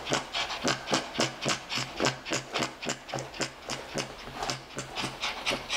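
Pekingese dog panting hard and fast, about four short noisy breaths a second.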